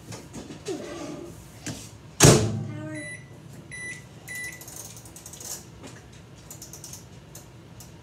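Microwave oven door shut with a thump about two seconds in, then three short keypad beeps as the cooking time is set.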